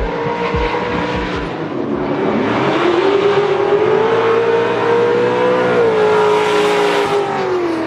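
Drift cars' engines held at high revs through a slide, the note wavering a little and then falling away near the end, with tyre noise building up under it.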